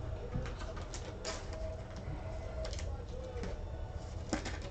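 Quiet handling noise, a few soft clicks and taps, over a faint low cooing tone in the background.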